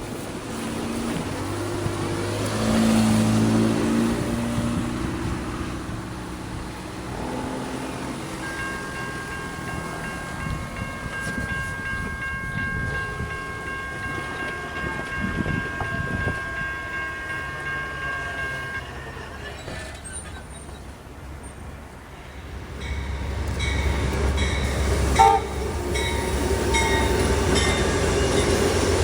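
Amtrak Silver Star passenger train approaching and passing: the diesel locomotive's engine at first, then steady high tones held for about ten seconds, then a louder rumble of the cars rolling by over the last several seconds, with a sharp click about twenty-five seconds in.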